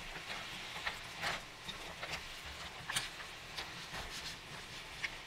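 Mussel shells clacking against each other and against a stainless steel frying pan as they are stirred with a silicone spatula: irregular sharp clicks, one or two a second, the loudest about three seconds in.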